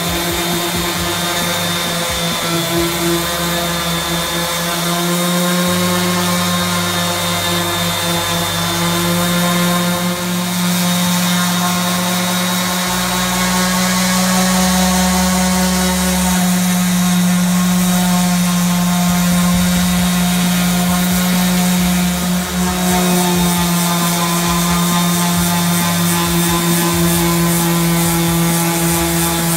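Random orbital sander running steadily, its pad sanding a beech tabletop: a constant motor hum with a faint high whine above it.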